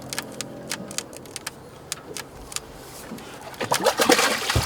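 A boat's engine running steadily, with scattered clicks and knocks of handling gear on deck. About three and a half seconds in it gets louder with movement and voices.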